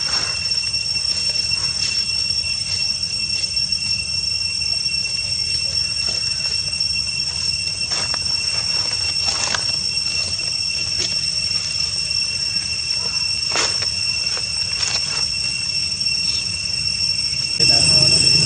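Steady, high-pitched insect chorus droning at two pitches, with a few faint short chirps or clicks. It becomes louder near the end.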